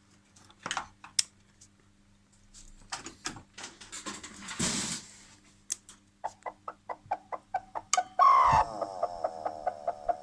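Faulty welding machine making a crowing, clucking noise. It gives scattered clicks, then a regular ticking about four times a second. About two-thirds of the way through a loud warbling squeal breaks in, falls in pitch, then carries on as a rapid pulsing warble. The sound is the sign of a fault in the machine.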